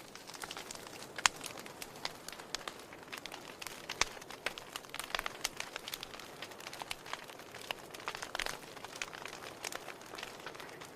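Wood fire crackling in a fireplace: irregular sharp pops and snaps over a soft steady hiss, the loudest pops about a second in and at about four seconds.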